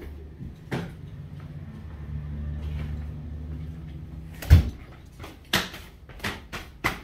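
Knocks and footsteps on hard vinyl plank flooring over a low steady hum. There is one heavy thump a little past the middle, then a quick run of sharp taps and clicks.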